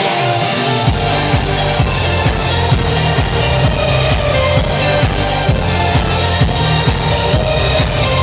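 Loud electronic dance music played over a show's sound system. Heavy bass and a kick drum come in about a second in, then hold a steady beat of about two a second.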